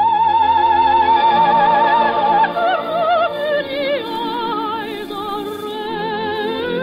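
Operetta music with orchestra: a soprano holds a long high note with vibrato, then the melody steps down and carries on lower.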